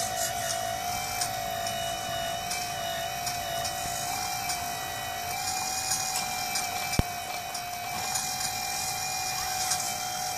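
Hydraulic pump of a 1:14 scale RC Komatsu PC800 excavator whining steadily while the boom and bucket dig, its pitch wavering slightly under load, with a crackling hiss over it. A single sharp click about seven seconds in.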